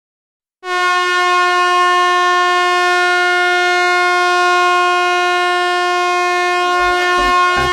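Ice hockey arena goal horn sounding one long, steady blast, starting about half a second in after a brief silence. About a second before the end, the beat of a goal song starts under it.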